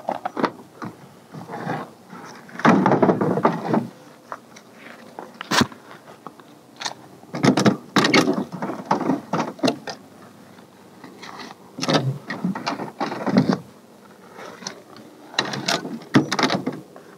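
Hands working the metal hasp latch and small hinged door of a plywood pigeon box: bouts of clicks, knocks and scraping with short quiet gaps between.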